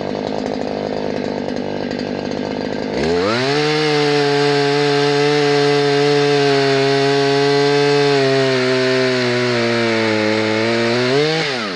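Stihl KM94RC two-stroke engine driving a chain lopper attachment. It idles, then about three seconds in it is throttled up sharply to high revs and held there, the chain sawing into a thick branch with the engine note sagging slightly under load. Near the end the revs rise briefly, then fall back toward idle.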